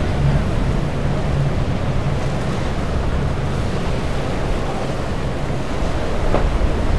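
Surf breaking and washing against rocks, with wind buffeting the microphone. A boat's engines hum low and steady under the water noise for the first few seconds, then fade.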